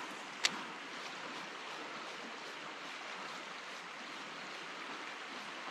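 Steady rush of flowing river water, with a single sharp click about half a second in.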